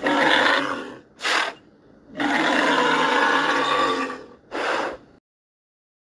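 Made-up Elasmotherium (extinct giant rhinoceros) calls assembled from mixed animal recordings such as walrus, rhino, camel and bull: a call, a short burst about a second in, a longer pitched call of about two seconds, another short burst, then it cuts to silence near the end.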